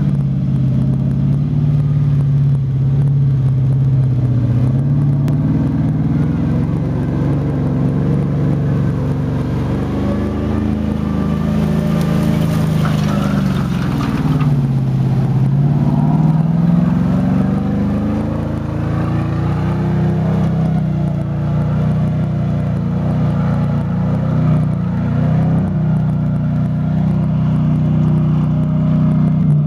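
Alvis Stalwart 6x6 amphibious truck's Rolls-Royce B81 straight-eight petrol engine running steadily. About midway its pitch drops and then climbs back up as the revs change, with a brief hiss at the same time.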